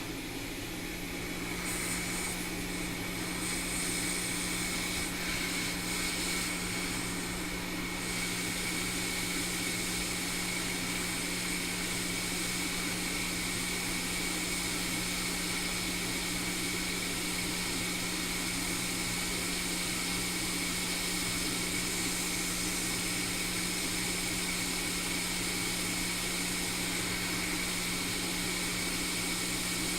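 Hot air rework station (Quick 861DW) blowing a steady stream of hot air, a continuous hiss over a low hum that builds up over the first couple of seconds and then holds steady. It is heating the iPhone 6 Plus's TriStar chip to melt the solder so the chip can be lifted off the logic board.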